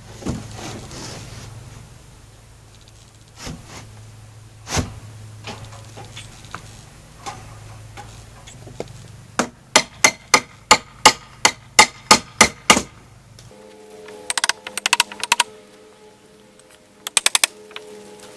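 A new plywood transom board being knocked down into an aluminium boat's stern: a few scattered knocks, then a run of about a dozen loud, evenly spaced blows, about four a second. After a cut, short quick runs of rapid tapping.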